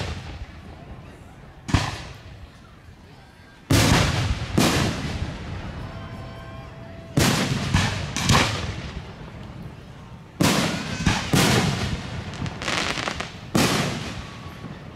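Aerial firework shells bursting one after another: about a dozen sharp booms, several in quick pairs and threes, each followed by an echoing tail that dies away.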